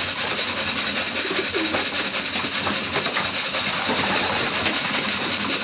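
Pigeons cooing softly a couple of times over a steady rushing noise.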